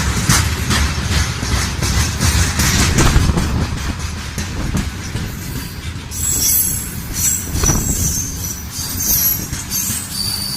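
Train wheels clattering over rail joints as railway cars pass, with high-pitched wheel squeal joining in from about halfway through.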